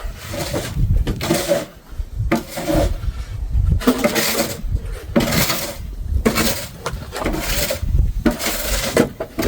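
Snow shovel scraping and pushing snow across pavement, in repeated strokes about one every second or so.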